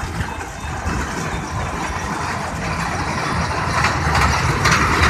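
Miniature ride-on park train running along its track, a steady rumble of its running gear on the rails. It grows louder over the last second as the train draws near.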